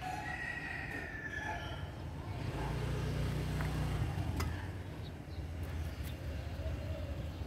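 Low rumble of outdoor city background noise, swelling for a couple of seconds in the middle, with a faint thin whine in the first second.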